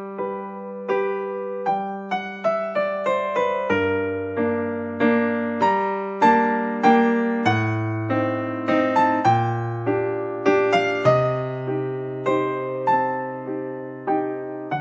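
Background music: a gentle piano piece of single struck notes that ring and fade, over slow held bass notes.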